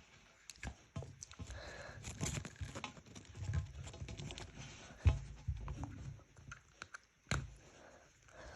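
Hands working a small plastic toy out of a figure's packaging: irregular rustling, scratching and small clicks, with a sharper knock about five seconds in and another near the end.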